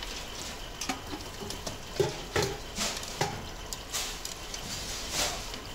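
Long metal tongs clinking against stainless steel utensils and the metal drum as they are stirred about in steaming hot water, with water stirring underneath. There are several separate metallic knocks, irregularly spaced.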